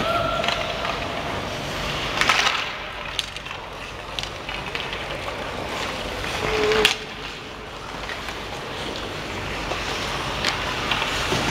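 Ice skates scraping and gliding over rink ice, with a few sharp clacks of hockey sticks hitting the puck and ice, in an echoing indoor arena.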